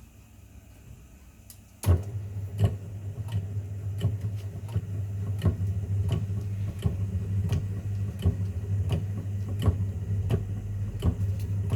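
An electric machine motor switches on suddenly about two seconds in and runs with a steady low hum, with sharp clicks and ticks scattered over it at irregular intervals.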